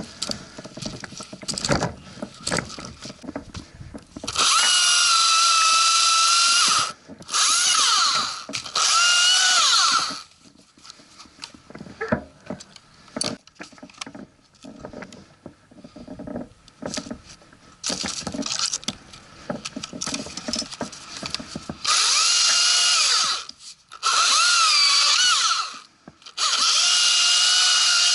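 Battery top-handle chainsaw cutting in short bursts, three, a pause, then three more; its high whine drops in pitch as the chain bites into the wood. Between the cuts the saw falls silent, and the gaps hold knocking and rustling of branches.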